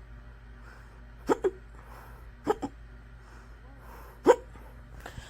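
A person hiccuping hard: three sharp hiccups a second or two apart, the first two each followed at once by a smaller second catch, the loudest about four seconds in, then a faint one near the end. It is a long, persistent bout that the person says is hurting their stomach.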